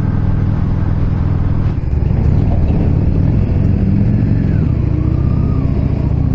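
Yamaha Drag Star 650's air-cooled V-twin running steadily under way, heard from the rider's seat. About two seconds in its level dips briefly, then it runs a little louder with the pitch wavering.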